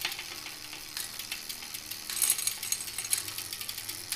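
Bicycle drivetrain turned by hand in a repair stand: the chain running over a Shimano XT 11-40 cassette and through the Shimano 105 rear derailleur pulleys with a fast run of clicks and rattle, louder for a moment about two seconds in as the chain is shifted up the cassette.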